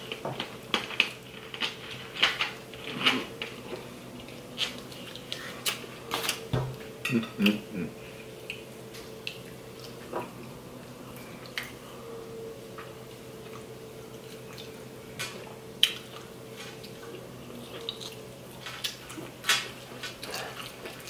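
Forks clinking and scraping against plates of pasta and salad, irregular sharp taps scattered through the meal.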